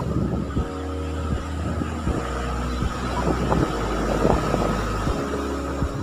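Wind buffeting a phone's microphone, low gusts that come and go, over the wash of waves breaking on a sandy beach.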